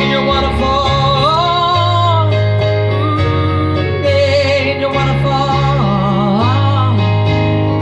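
Worship song music: a singing voice carries a gliding melody over guitar and steady bass notes.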